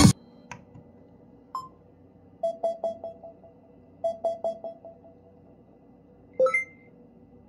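Short electronic prompt beeps from a Redragon GS570 soundbar as it pairs over Bluetooth: a click, a single tone, two quick runs of four or five pips, and a rising chirp near the end.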